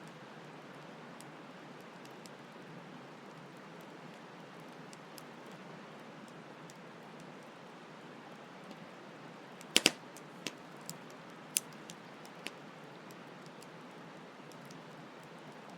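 Campfire crackling over a steady hiss of flowing stream water. About ten seconds in the fire gives a sharp double pop, then a few lighter pops over the next three seconds.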